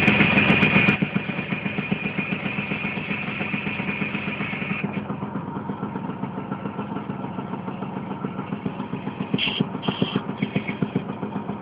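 DKW 159's small two-stroke single-cylinder engine running at idle, with an even, rapid beat of exhaust pulses. It is louder for about the first second, and there are two short louder bursts near the end.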